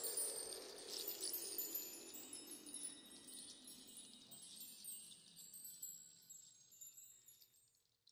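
Soft, high tinkling of chimes fading slowly away, the tail of the outro music, gone just before the end.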